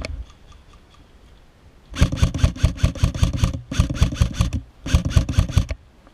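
Lancer Tactical LT-15 Gen 2 airsoft electric rifle firing three rapid full-auto bursts, the middle one shortest, each a fast run of sharp cracks from the gearbox cycling.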